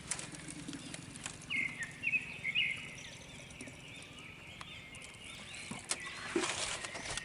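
Outdoor ambience of birds chirping in short, repeated calls, brightest in the first few seconds, with a few sharp clicks and light rustling.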